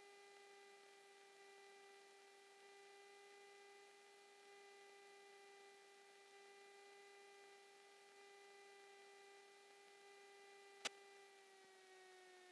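Faint steady hum with a ladder of overtones in the Cessna 172's cockpit intercom audio, the engine-driven drone of the aircraft, sagging slightly in pitch near the end as power comes back on final approach. A single sharp click about eleven seconds in.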